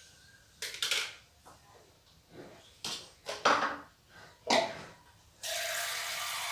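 Glasses, cups and plastic dishes knocking and clinking as they are picked up and set down at a kitchen sink, in several short clatters, the loudest about three and a half seconds in. Near the end the tap is turned on and water runs steadily into the sink.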